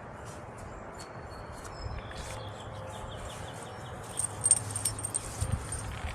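Steady outdoor noise with light metallic clinks and ticks, a cluster of sharper ones about four to five seconds in.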